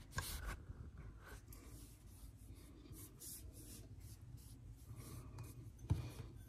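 A fingertip rubbing water along the edges of a wonton wrapper on a countertop: faint, scratchy rubbing with small taps, and one sharper knock about six seconds in.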